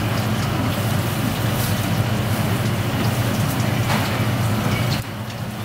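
Steady mechanical hum with a hiss over it and a few faint ticks. The level drops about five seconds in.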